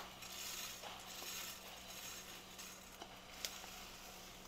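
Faint sizzle of peanuts, curry leaves and chillies frying in oil in a metal kadai, with a metal spatula clicking against the pan at the start and again about three seconds in. Near the end, puffed rice begins to pour into the pan with a soft rustle.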